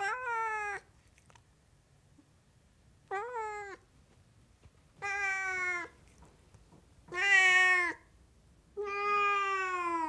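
Sphynx cat meowing five times at a steady pace, each meow falling in pitch at its end. The fourth meow is the loudest and the last is the longest.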